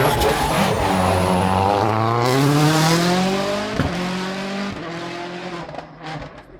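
Rally car engine revving hard as it accelerates past, its pitch climbing for a couple of seconds and then holding high, with a sharp crack about four seconds in, before the sound fades away as the car goes off.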